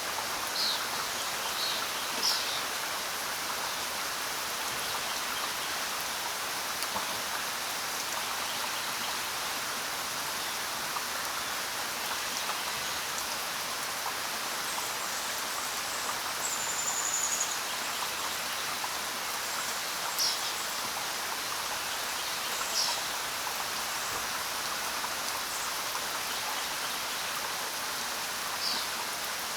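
Steady rain falling, with a few short, high bird chirps now and then: a cluster near the start and a few more later on.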